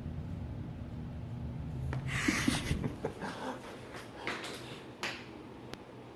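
A domestic cat panting hard with open-mouth breaths, worn out from intense play. About two seconds in there is a burst of rustling, followed by a few sharp clicks.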